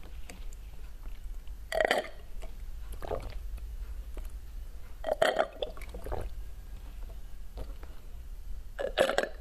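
A woman drinking through a plastic straw at close range, swallowing. There are three louder gulps about two, five and nine seconds in, with fainter sips between.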